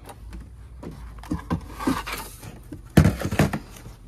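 Junk in a pile being rummaged through by hand: a few light knocks, a rustling scrape near the middle, then a sharp knock and several clatters about three seconds in as a game console is pulled free.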